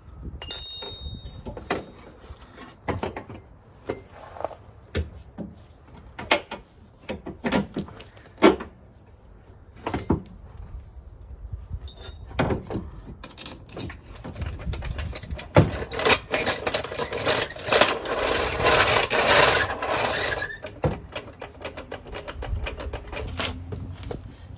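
Hand tools and metal parts clinking and knocking as a mechanic removes a car's A/C compressor and fits control-arm mounting bolts: scattered single knocks, then a busier stretch of rattling and scraping lasting a few seconds, about two-thirds of the way through.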